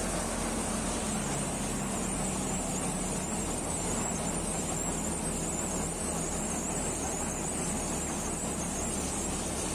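Bansal multicrop thresher running steadily under load, driven by a Mahindra Arjun 555 DI tractor, as dry crop stalks are fed into its hopper and pulled in by the spiked feeder auger. The sound is a dense, even mechanical noise over a constant low hum.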